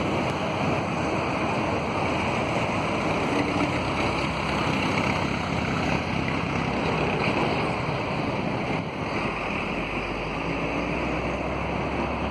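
Boeing 787-8 jet airliner flying overhead: a steady rushing engine noise, easing slightly in the last few seconds.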